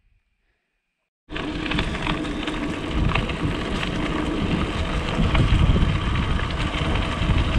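Bicycle riding along a gravel dirt road: heavy wind noise buffeting the camera microphone and a crackle of gravel under the tyres. It starts suddenly about a second in.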